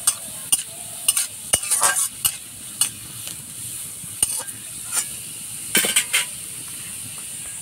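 Chopped garlic sizzling in hot oil in a metal wok, with a steady hiss. A metal spatula stirring it now and then clicks and scrapes sharply against the pan.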